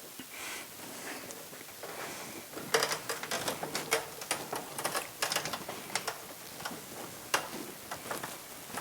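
Hand-cranked winch of a drywall panel hoist being wound up to raise a panel, its ratchet clicking in quick, uneven runs from about three seconds in.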